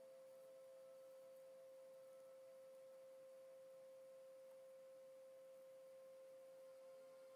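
Near silence with a faint, steady, even hum on a single pitch, like a constant background tone in the recording.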